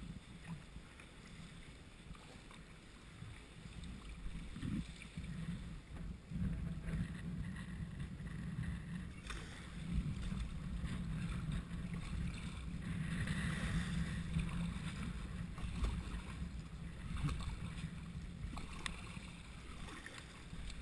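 Sea water sloshing and lapping around a kayak while it is paddled between rocks. A low rumble on the microphone grows louder from about six seconds in, with a couple of sharp knocks near the middle.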